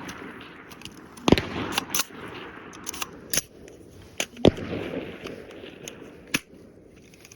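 Rifle shots fired at a coyote: two loud cracks about three seconds apart, with a few fainter sharp cracks between and after.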